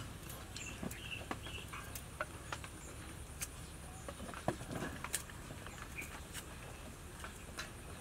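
Scattered light clicks and taps, with a few short, faint bird chirps.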